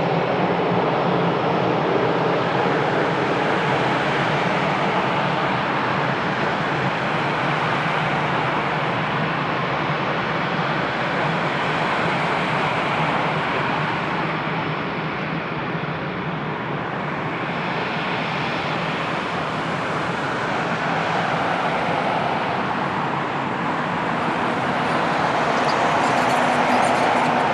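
Jet airliner engine noise: a steady rushing roar that eases off slightly in the middle and swells again near the end.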